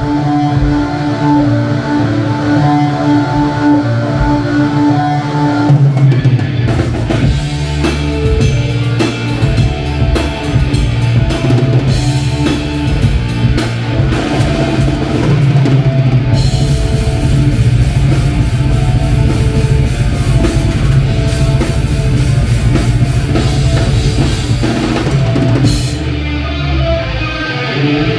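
Live rock band playing loud: sustained guitar chords at first, then the drum kit comes in about six seconds in with cymbal crashes and the full band playing to the end.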